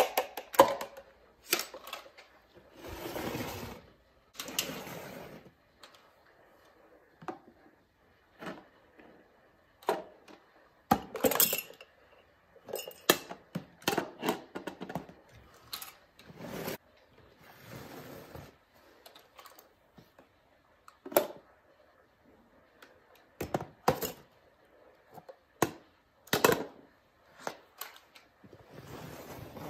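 Small plastic toy trash bins clattering as a reacher-grabber tool grips, lifts and tips them over a plastic wastebasket, with short rattling and rustling stretches as small bits of trash spill in. The clicks and knocks come irregularly, several times throughout.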